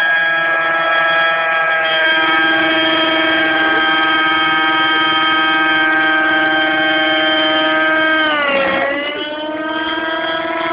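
Align T-Rex radio-controlled helicopters in flight: a loud, steady, high-pitched engine and rotor whine that dips sharply in pitch and level about eight and a half seconds in, then climbs back.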